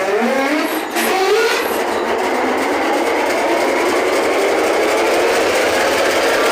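Locomotive diesel engine that has just been started, its pitch rising over the first second or so as it comes up to speed, then settling into a steady loud idle.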